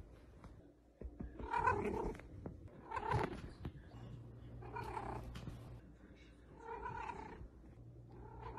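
Calico cat giving a string of short, pitched meowing cries, about one every second and a half, with a low purr underneath at times.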